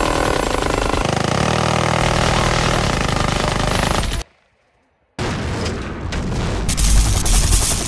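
A minigun firing one long, unbroken burst that blurs into a continuous buzz. It cuts off about four seconds in, and after a second's silence loud gunfire returns with a big explosion near the end.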